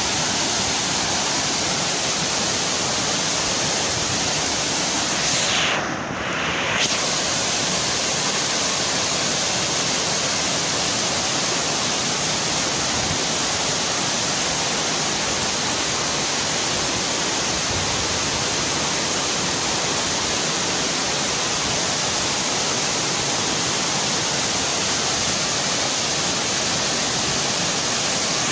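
Steady rushing roar of a waterfall cascading over boulders into a plunge pool, briefly dipping about six seconds in.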